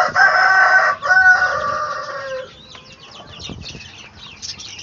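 A rooster crows once: a loud, long call of about two and a half seconds with a brief break about a second in, dropping slightly in pitch at the end. Chicks then peep in quick, faint, high chirps.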